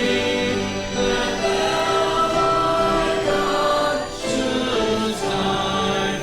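Choir singing a hymn, holding long notes in chords.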